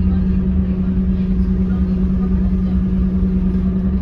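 Scania K230UB bus's rear-mounted five-cylinder diesel and driveline running at a steady cruise, heard from inside the passenger cabin as a low rumble with a steady hum.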